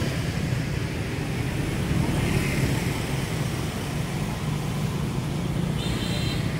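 Steady low drone of a vehicle's engine with road and wind noise, heard from on board the moving vehicle.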